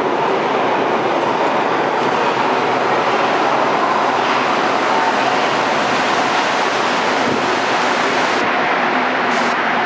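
Rubber-tyred Montreal Metro train pulling into the station and running along the platform: a loud, steady rush of tyres on the track.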